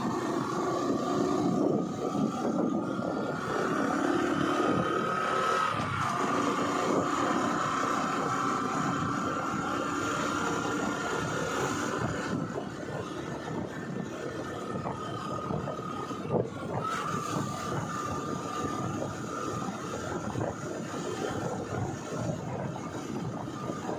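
Vehicle engine and road noise heard from a moving two-wheeler, over a steady rush of wind and tyres. The engine whine climbs slowly in pitch for about twelve seconds, drops suddenly, then carries on at a lower steady pitch, with a short knock about two-thirds of the way in.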